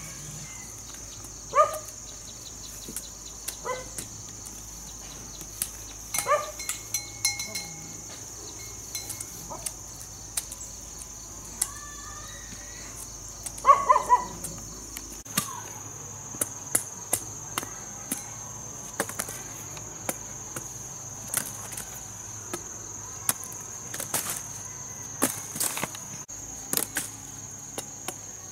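Steady high-pitched drone of insects. A dog barks a few times in the first half, and many sharp knocks and clicks come in the second half.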